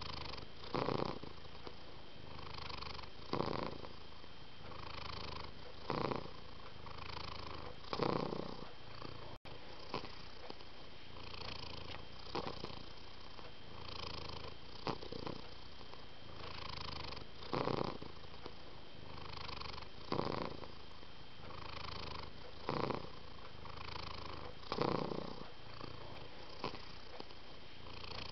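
Domestic cat purring steadily, swelling louder about every two and a half seconds.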